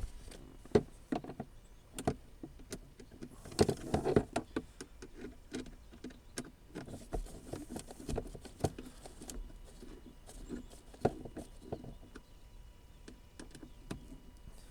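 Scattered sharp clicks and knocks with stretches of rustling: plastic center-console trim pieces being handled and pushed into place by hand.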